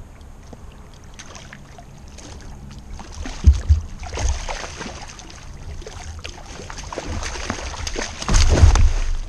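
A hooked shark thrashing at the surface beside a kayak: repeated splashing with sharp crackles, loudest in a surge about three and a half seconds in and again near the end.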